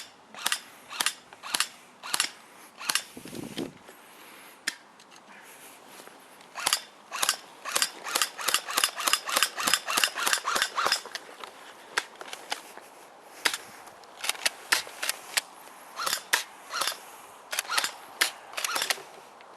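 Airsoft guns firing single shots as sharp pops: spaced about half a second apart at first, then a quicker run of about five a second from roughly seven to eleven seconds in, then more scattered shots.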